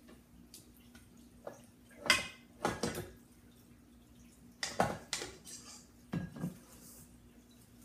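A spatula and wire whip clinking and knocking against a stainless-steel stand-mixer bowl as dough is scraped off the whip, then the bowl clunking as it is lifted off the mixer; a few short clatters with pauses between.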